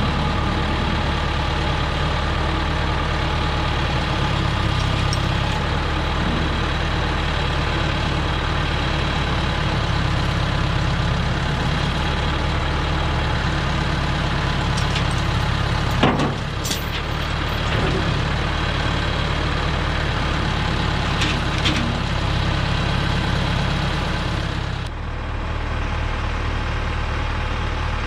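Small engine of a Hudson HFE30 bandsaw mill running steadily, with a sharp knock about halfway through and an abrupt change in tone near the end.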